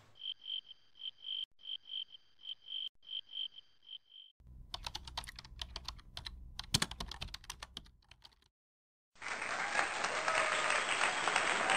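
A cricket chirping, a short high chirp about three times a second, for the first four seconds. Then a run of sharp clicks and taps over a low rumble, and after a brief gap a steady noisy hiss to the end.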